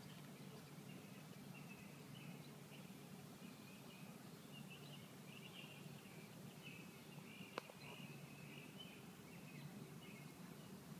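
Faint, constant high peeping of a brood of ducklings, many short irregular peeps overlapping, with one sharp tap about seven and a half seconds in.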